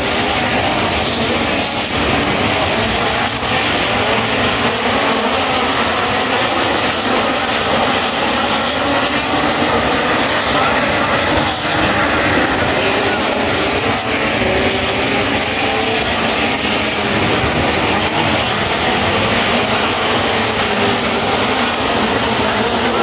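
Several midget race cars running at racing speed around a dirt oval: a continuous loud engine blare, with the engine notes wavering as the cars pass.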